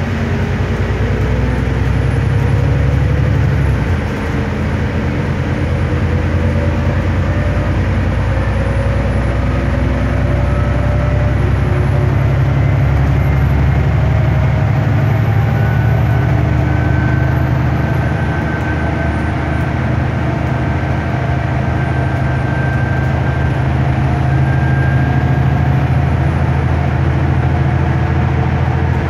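Stagecoach Gold bus heard from inside the passenger saloon while under way: a steady low engine drone with road and tyre noise. A whine rises slowly in pitch over the first ten seconds or so as the bus gathers speed.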